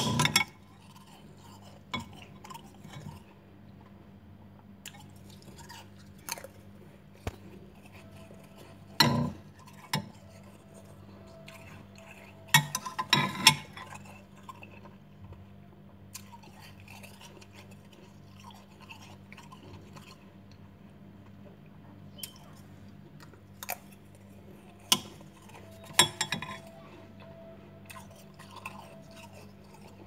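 Metal spoon scooping powdery freezer frost in a glass bowl, with scattered sharp scrapes and clinks of the spoon against the glass, clustered at the start, about a third of the way in and again near the end. A steady low hum runs underneath.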